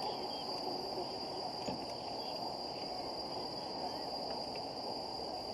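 Steady, unbroken high-pitched insect chirring, such as crickets, over a low background hum of outdoor noise.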